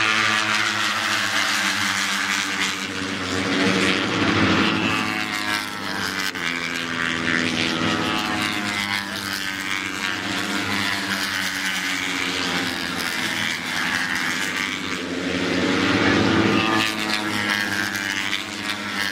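Racing motorcycle engines running at high revs as bikes pass on the circuit, several at once, their pitch rising and falling with passes and gear changes. Loudest passes come at the start, about four seconds in, and again near the end.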